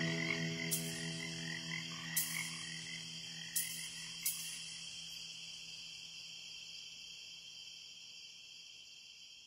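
Swamp ambience of croaking frogs and chirring insects as a dungeon synth track ends: its low synth drone dies away in the first seconds, leaving the steady high insect chorus and a few sharp clicks, and the whole sound fades steadily toward silence.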